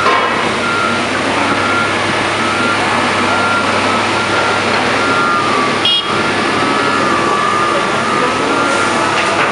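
Heavy diesel construction machinery running steadily at an excavation, with a vehicle's backup alarm beeping on and off. There is a single sharp metallic clank about six seconds in.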